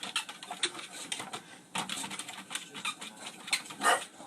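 A cat's paws and claws pattering and clicking irregularly as it runs during a play-exercise session, with a louder scuffle near the end.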